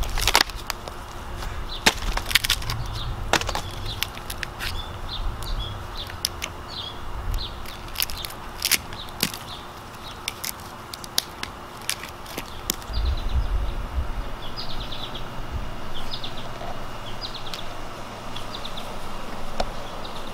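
Bark being pried off a large maple burl with a metal hand tool: irregular cracks and snaps as pieces of bark split and break away, the loudest right at the start.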